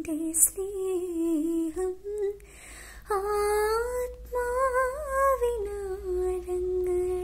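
A young woman singing solo with no accompaniment, a Malayalam Christian devotional song. She holds long drawn-out notes with no clear words, sliding and wavering between pitches. There is a quick breath about half a second in and short breaks near two and a half and four seconds.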